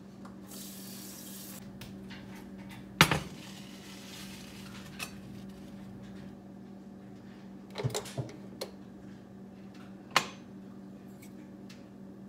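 A brief rush of water from the kitchen tap. Then a stainless steel saucepan clanks, loudest about three seconds in, with a few more metal clinks of the pot and its lid against a glass-top electric stove later on.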